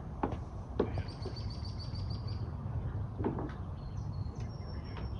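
Rabbit biting off and chewing grass, a few separate sharp crunches over a steady low outdoor rumble. A bird trills in the background, a quick run of evenly repeated high notes about a second in, with more short whistles near the end.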